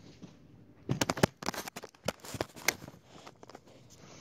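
A quick run of sharp knocks and clicks on a hard surface, starting about a second in and thinning out near the end: objects being handled and set down.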